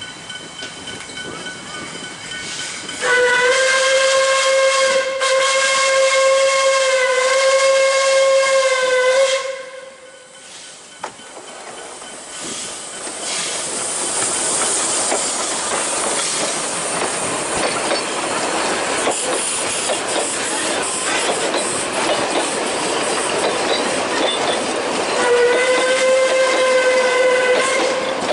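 Puffing Billy narrow-gauge steam locomotive sounding its steam whistle in a long, steady blast of about six seconds. The train then passes with steam hissing and wheels clattering over the rail joints, and a second, shorter whistle blast comes near the end.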